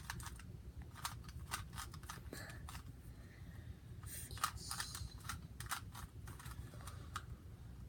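Plastic Rubik's cube being turned by hand during a solve: quick, irregular clicks and clacks as the layers snap round, several in fast runs, over a steady low hum.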